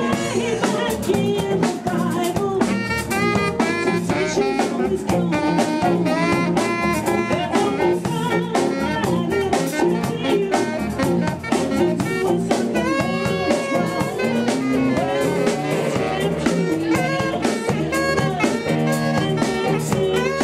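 Live band music: a saxophone playing melodic lines over drum kit, electric bass and keyboard.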